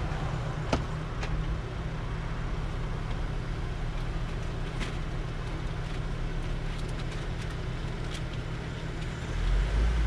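Car engine and road noise heard from inside the cabin: a steady low rumble with a few faint clicks, swelling to a louder low rumble near the end.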